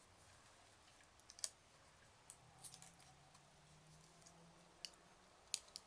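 Faint, scattered clicks and crinkles of a candy package being handled and opened, a handful of sharp little snaps spread over several seconds.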